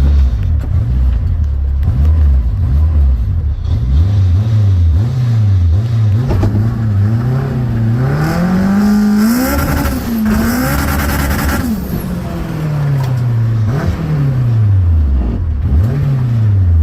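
Turbocharged K20-engined Honda Civic revving over and over, its pitch rising and falling about once a second. The revs climb highest about halfway through, where a loud hiss joins in.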